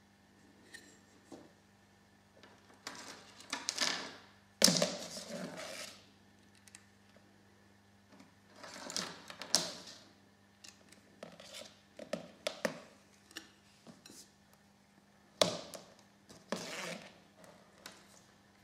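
Hands handling a small model wind turbine, wires and alligator clips on a tabletop: irregular rustling, clicks and knocks, with a sharp knock about a quarter of the way in and another a little before the end. A faint steady hum runs underneath.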